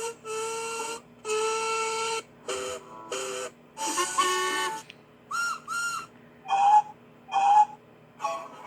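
A train whistle sounding about ten blasts, a few long and most short. Each blast is a chord of several steady tones, and the pitch of the chord changes from blast to blast.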